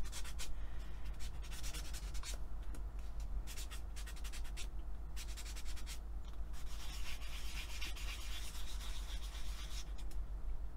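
Fine sanding pad rubbing back and forth on a small piece of polymer clay, a dry scratchy hiss in runs of quick strokes broken by short pauses.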